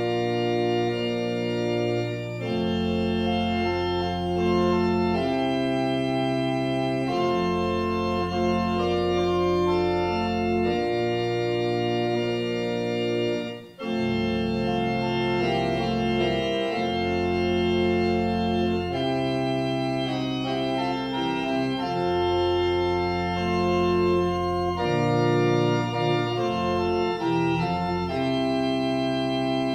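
Organ playing slow, sustained chords, the notes changing together every couple of seconds, with a brief break about 14 seconds in.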